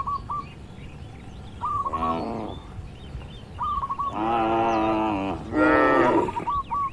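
Cattle mooing: a short moo about two seconds in, then a long one followed closely by another, the long one the loudest. A bird chirps short repeated calls in between.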